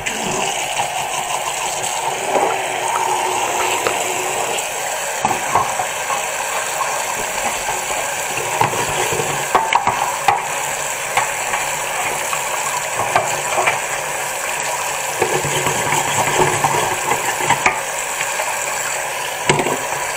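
Kitchen tap running into a stainless steel sink, turned on just as the sound begins, with water splashing and a hand rinsing and rubbing around the drain strainer.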